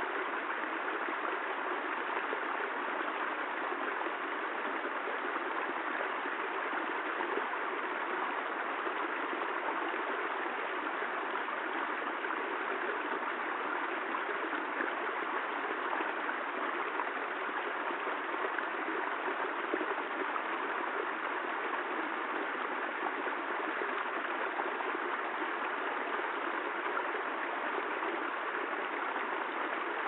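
Small rocky stream running steadily down a short cascade over stones, an even rush of water.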